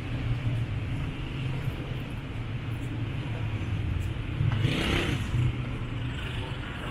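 City street traffic: a steady low rumble of engines, with one vehicle passing close and swelling to its loudest about five seconds in.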